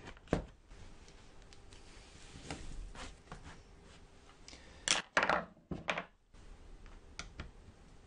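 Light knocks and clicks of hands and a screwdriver handling the opened netbook on a wooden table, with the loudest knocks about five and six seconds in.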